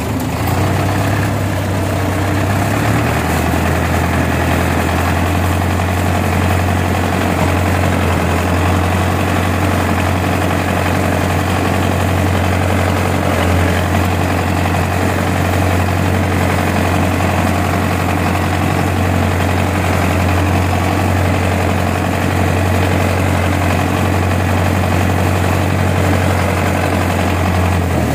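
Farm tractor's diesel engine running steadily, heard from the driver's seat as a strong, deep, unbroken hum.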